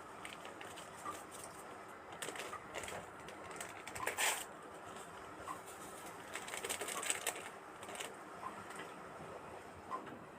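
Faint scraping and soft knocks of a spoon stirring thick rice pudding in a pot.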